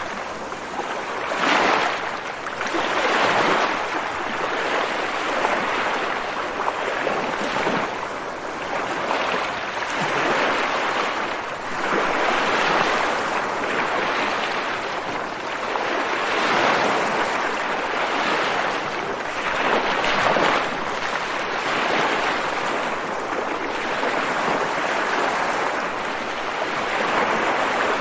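Ocean surf, waves breaking and washing in a steady rush that swells and eases every couple of seconds.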